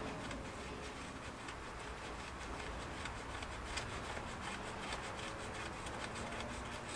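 Light, irregular ticking and rubbing of hand tools working on metal car parts.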